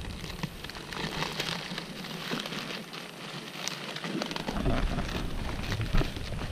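Plastic sack crinkling and crackling, with dry leaf litter rustling, as hands handle the sack and tie it shut with a leaf strip: a dense run of small irregular crackles with a few louder knocks near the end.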